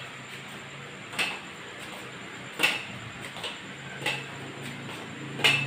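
Tips of stick props used as crutches tapping down on a hard floor as a person walks with them: a sharp knock about every second or so, the last one the loudest.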